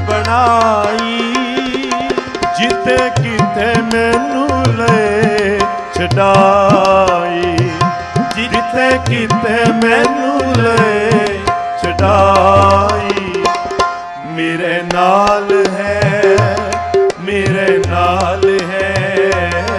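Gurbani kirtan music: tabla keeping a steady beat, with deep bass-drum booms, under a wavering melody line with held notes.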